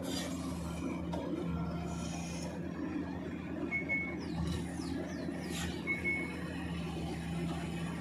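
Hydraulic sheet-pile press-in machinery running with a steady low hum. Several quick falling chirps and two brief high tones sound over it midway through.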